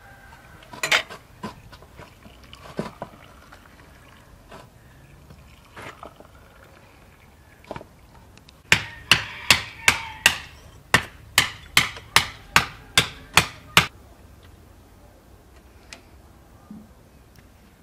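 A teaspoon clinking against a glass of tea as the tea is stirred: about a dozen sharp, even clinks, a little over two a second, for about five seconds. Before that, a few scattered clinks of glasses on a metal tray.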